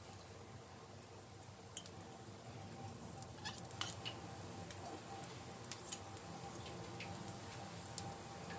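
Light, irregular clicks and scrapes of a steel spoon and fork against each other as small lumps of coconut-jaggery filling are pushed off onto rice batter in a wok, heard over a faint steady hum.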